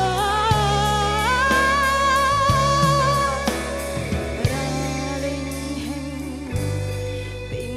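A woman singing a Dhivehi song with a live band, holding a long, wavering high note over drums and bass. Her voice drops away about halfway through and the band plays on.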